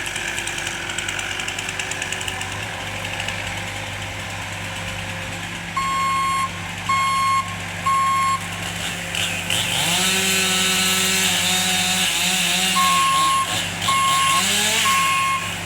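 Heavy truck engine running with a back-up alarm beeping about once a second, three beeps and then, after a pause, four more. Partway through the engine revs up and its pitch wavers, rising and falling briefly near the end.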